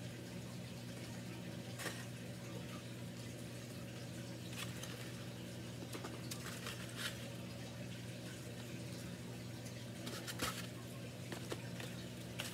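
Faint rustling of plastic wrapping and a handful of short clicks as small packaged items are handled and pushed into an Easter basket, over a steady low electrical hum; the clicks bunch together near the end.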